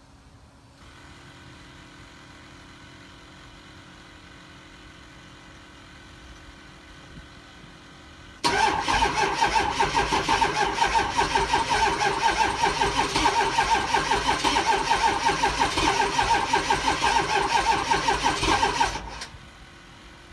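Ford 6.0 Power Stroke V8 diesel cranking on the starter for about ten seconds with a steady rhythmic pulse, never catching: a cold no-start. Before the cranking begins and after it stops, only a faint steady hum.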